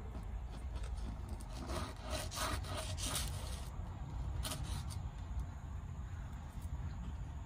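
Table knife sawing through toast and fried egg and scraping on a paper plate: irregular short scratchy strokes over a steady low rumble.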